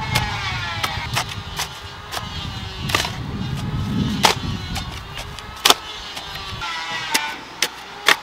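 Garden hoes chopping into loose soil: sharp, irregular strikes, about a dozen in all, the loudest near the end. Background music plays under them, and a low rumble cuts off suddenly about two-thirds of the way through.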